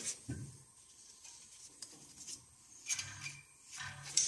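A brake caliper and its metal brake-line bracket being handled against a car's front steering knuckle: a few light metal scrapes and knocks, a couple of them near the start and more near the end.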